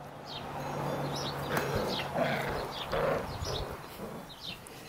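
Backyard ambience: faint small birds chirping now and then, over a low steady hum that stops a little under two seconds in, with scattered rustling.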